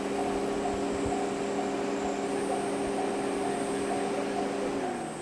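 Japanese railway level-crossing warning bell clanging in a steady rhythm, about two dings a second, over a steady low hum that drops in pitch near the end.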